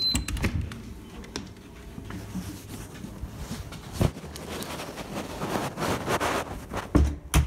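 Rustling and handling noise from a phone microphone being carried about, with a few dull knocks, the loudest about four seconds in and two more near the end.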